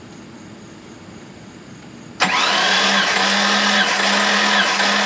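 Starter motor cranking a Jeep six-cylinder engine, without it firing, during a compression test on cylinder six. The cranking starts suddenly about two seconds in as a loud, steady whine that falters regularly, about once every 0.8 s.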